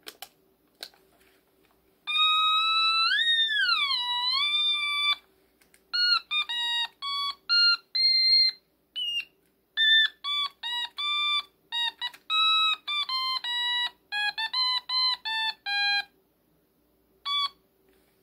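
Otamatone played as a melody. A long wavering note slides up and then down, followed by a quick run of separate notes at different pitches and one last short note near the end.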